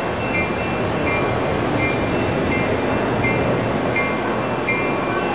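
Railroad crossing warning bell ringing in an even rhythm, a little more than one strike a second, over a steady rumbling background.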